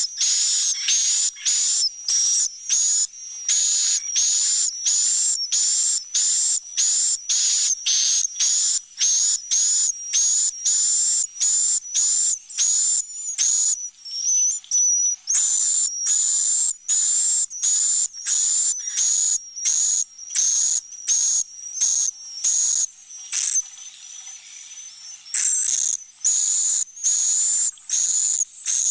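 Swiftlet roosting-call lure recording: a dense series of short, buzzy swiftlet chirps, about two a second, with a thin high whistle running through them; the chirping thins briefly about halfway and again near the end. This 'inap' sound of chicks and adult swiftlets is played in a swiftlet house's nesting room to make the birds feel they are among a colony.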